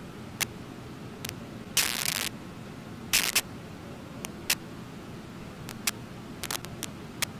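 Steady low rush of river water, broken by scattered sharp clicks and two short rustling bursts.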